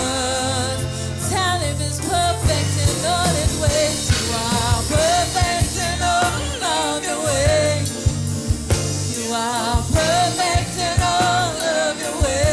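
Gospel worship song: vocals singing a wavering melody over a band with a steady bass and drum kit.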